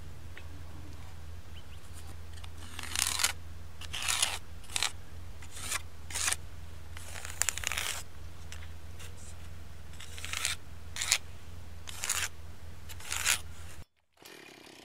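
A marking tool scraping across the sawn end grain of an oak log in about a dozen short, unevenly spaced strokes, drawing cutting lines along a straightedge.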